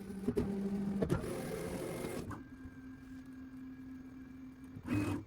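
Onefinity Elite CNC router's axis motors homing: a steady motor whine that changes pitch as the axes move one after another, with sharp clicks about a third of a second and about one second in.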